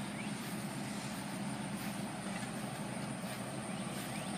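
Steady engine drone with a constant low hum, unchanging throughout.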